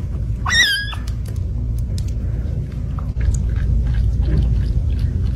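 A young kitten mews once, a short high-pitched cry about half a second in, while being bottle-fed; a steady low rumble and faint small clicks carry on as it suckles.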